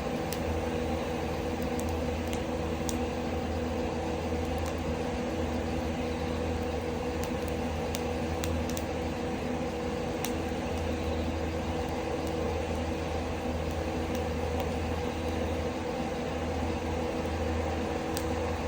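Ceiling ventilation fan extracting woodsmoke, running with a loud, steady hum that buries the fire. A few faint pops from the burning firewood come through now and then.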